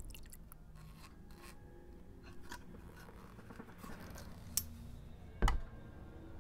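Quiet handling sounds of a plastic cup, a tube and a metal air blow gun being fitted: scattered light clicks and scrapes, with two sharper clicks in the second half, the later one the loudest.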